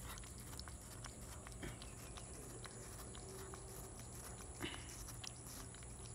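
A cat biting and chewing watermelon flesh: faint, irregular wet clicks and smacks, with a louder one about four and a half seconds in.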